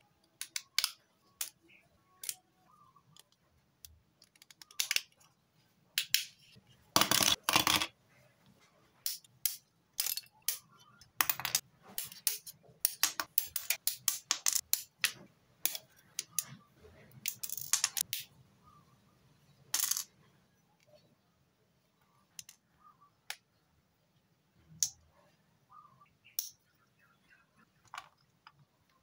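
Irregular sharp clicks, snaps and clacks of hard plastic model-kit parts as they are handled, fitted together and snipped from the sprue with side-cutting nippers. A louder noisy rustle comes about seven seconds in, with denser runs of clicks after it.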